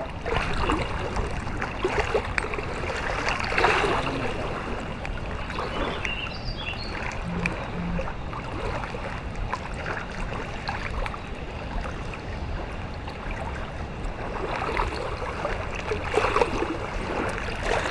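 Wind buffeting the microphone over the steady wash of river water, with a few stronger gusts.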